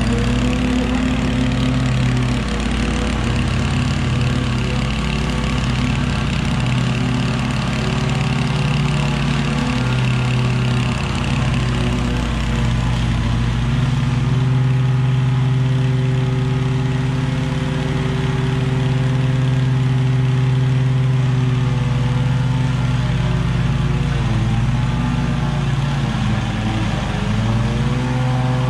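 Gas-powered string trimmers running steadily while cutting tall, overgrown grass, the engine pitch dipping briefly near the end.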